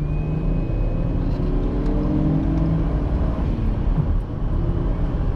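Ford Falcon XR6 Turbo's 4.0-litre turbocharged straight-six accelerating hard from 60 km/h, heard from inside the cabin. Its note rises steadily, breaks briefly about four seconds in, then climbs again.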